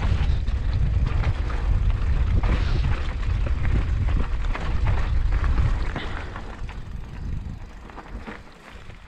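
Wind rumbling on the camera microphone over the clatter of a Schwinn Boundary hardtail mountain bike rolling down a dirt singletrack, with tyre crunch and frame rattles over bumps. It turns much quieter about six seconds in.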